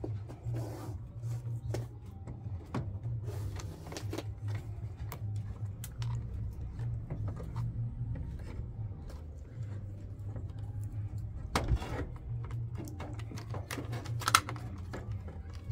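Plastic wiring-harness connectors being handled and pushed onto a front-loading washing machine's control board: scattered light clicks and taps, with two sharper clicks near the end, over a steady low hum.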